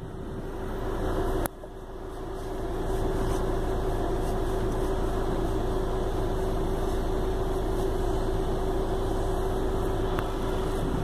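Peugeot 206 engine idling steadily, heard from inside the cabin, its revs not rising while the accelerator pedal is pressed down: the hot-engine fault in which the throttle gives no response. A short click about a second and a half in.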